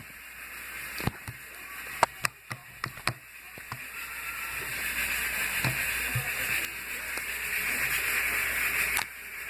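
Amoeba putty being worked with a finger, making the wet squelching pops meant to sound like slime: a quick run of sharp pops in the first few seconds, then a steady hiss.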